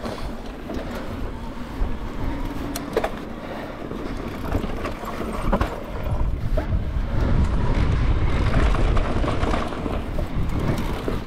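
Mountain bike descending a dirt singletrack: tyres rolling over dirt and rock, with wind rumbling on the camera microphone and scattered clicks and rattles from the bike. The wind rumble grows heavier about halfway through as speed picks up.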